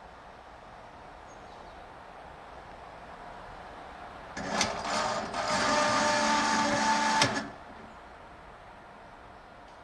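Train on track: a low steady rumble, then about four seconds in a loud passage of about three seconds holding several steady tones, with sharp clanks as it starts and stops.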